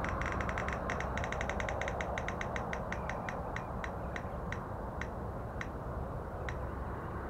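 A spinning selection wheel ticking, the clicks rapid at first and slowing steadily as the wheel loses speed, nearly stopping near the end, over a steady background hiss.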